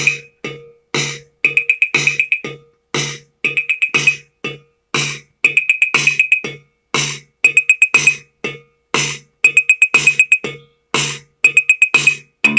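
Akai XR20 drum machine playing a programmed beat: a low kick, a snare about every two seconds, and fast rolls of a high, tinny tone between the hits.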